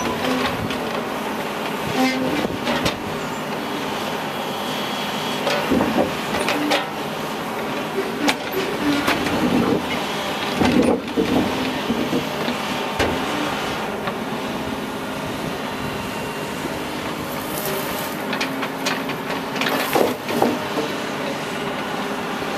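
Diesel engine of a Cat excavator on a rail work train running steadily, with about a dozen irregular clanks and knocks as it handles railroad ties.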